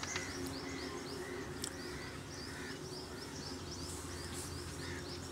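A small bird chirping over and over, about four or five quick rising chirps a second, over a faint steady low hum.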